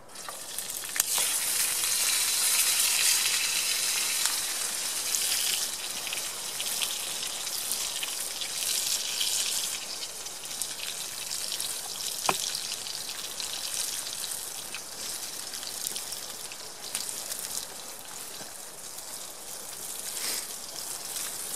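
Slices of canned luncheon meat sizzling in a hot frying pan. The sizzle starts suddenly, is loudest over the first few seconds, then settles to a steady frying hiss with an occasional sharp pop.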